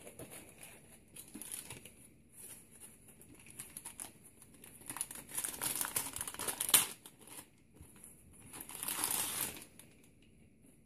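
Clear plastic bag crinkling as a router wrapped in it is lifted and handled. The crinkling comes in irregular bursts, loudest just past the middle with one sharp crackle, and swells again near the end.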